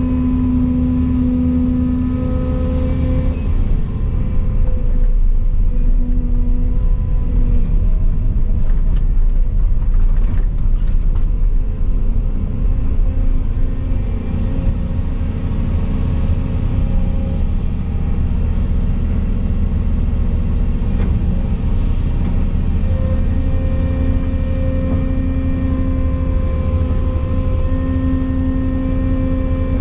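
Volvo EC220 excavator's diesel engine and hydraulics running, heard from inside the cab with a steady hum. It grows louder for several seconds about four seconds in as the boom works, then settles.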